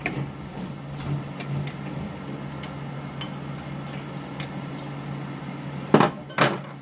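Light metallic ticking and rattling as a nylock nut is worked off a freshly cut M12 × 1.75 thread held in a lathe's three-jaw chuck, over a steady low hum. Near the end come two sharp metal knocks about half a second apart.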